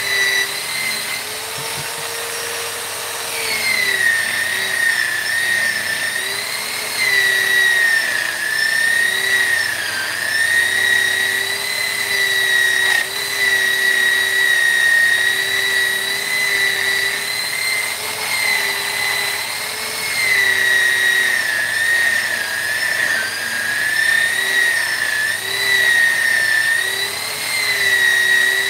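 High-speed electric rotary carving tool or grinder working wood, a continuous high whine whose pitch dips and recovers every few seconds as it bites into the wood.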